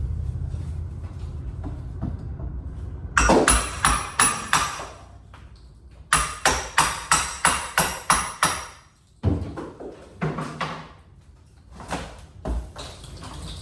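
Repeated sharp metal-on-material strikes with a bright ring from demolition work: a handful of quick blows, then a steady run of about eight at roughly three a second, followed by scattered lighter knocks.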